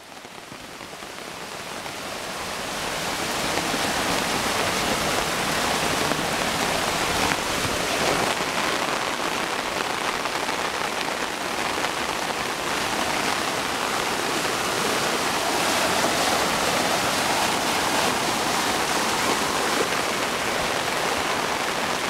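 Heavy rain falling together with muddy storm runoff rushing down a ditch, a dense steady wash of water noise that grows louder over the first few seconds and then holds.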